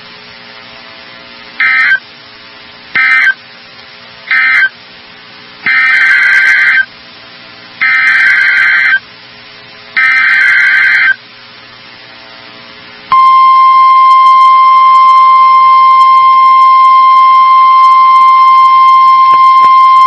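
Emergency Alert System SAME data bursts. First come three short end-of-message bursts that close the previous alert, then three longer header bursts that announce the next alert, a tornado warning. About 13 seconds in, a loud steady single-pitch 1050 Hz weather-radio warning alarm tone starts and holds.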